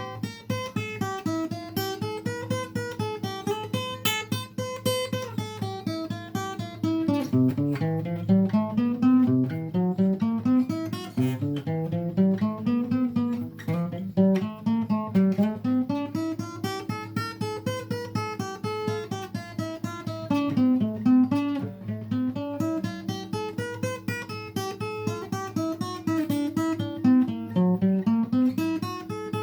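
Acoustic guitar playing an instrumental passage, plucked and strummed over a steady low droning note, with rising runs of notes in the middle.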